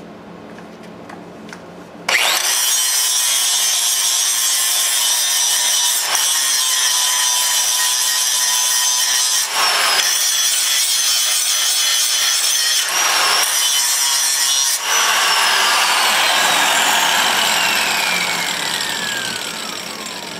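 A 4.5-inch angle grinder starts about two seconds in and grinds the cutting edge of a steel lawn mower blade held in a vise, sharpening it. Its steady high whine dips briefly a few times. Near the end the whine falls steadily in pitch and fades as the disc spins down.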